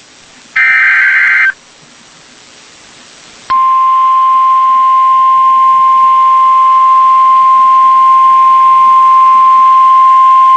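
Emergency Alert System SAME header: a one-second burst of digital data tones ends about a second and a half in. About three and a half seconds in, the long steady 1050 Hz weather alert tone starts and holds, growing slightly louder, ahead of a severe thunderstorm warning.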